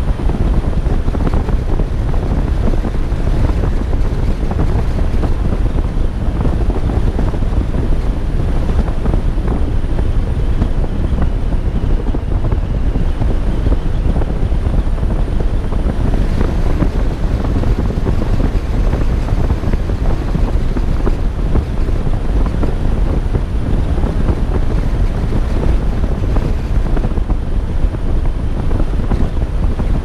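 Wind buffeting the microphone of a GoPro mounted on the outside of a moving car, a steady low rumble mixed with road noise. A faint, steady high whine sits above it.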